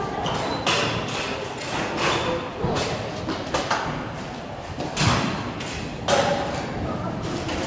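Kick scooters rolling and knocking on concrete ramps: a run of thuds and clatters that echo in a large hall, the sharpest about five seconds in.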